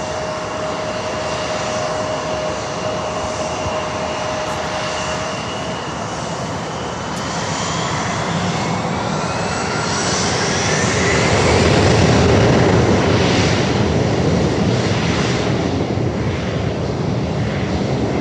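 Jet airliner's engines roaring as it passes, swelling to their loudest about two-thirds in and easing slightly toward the end, with an engine whine rising in pitch around the middle.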